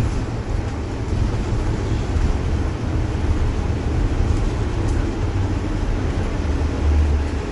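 City bus interior ambience: a steady low rumble of the engine and running gear, with the strongest rumble swelling briefly near the end.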